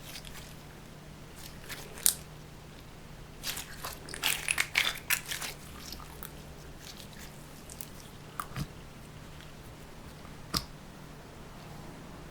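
Crunchy clicks and crackles of slime being handled, pressed and squeezed, with a dense burst of them around four to five seconds in and a few single pops later. A low steady hum runs underneath.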